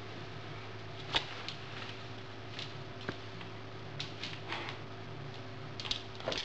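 A pet fox cub scrambling on a tiled floor as it plays with a person's hands: scattered light clicks and short scuffles, the sharpest about a second in and a small cluster near the end, over a steady low hum.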